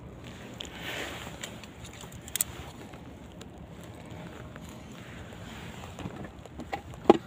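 Handling noise while a landed fish is taken in hand and clamped in a plastic fish grip: scattered clicks and rustles over a steady wind hiss, with a sharp knock near the end.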